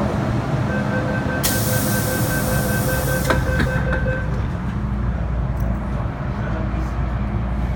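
MTR M-Train at a station stop: the door-closing warning beeps rapidly for about three seconds over a loud hiss, and the doors shut with a knock about three seconds in. From about five seconds in, a steady low hum as the train pulls away from the platform.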